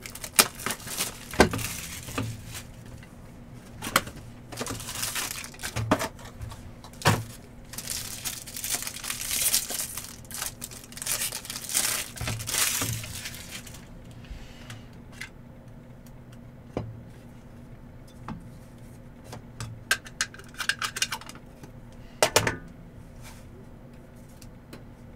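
Baseball card packs being torn open, with foil wrappers crinkling and cards clicking and tapping as they are handled and set down. The tearing and crinkling is busiest in the first half; after that come only scattered clicks.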